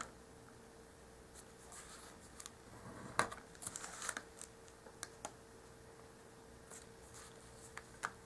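Faint scratching strokes of a knitting needle tip scoring fold lines into thin paper along a ruler, with a few light clicks, the sharpest about three seconds in.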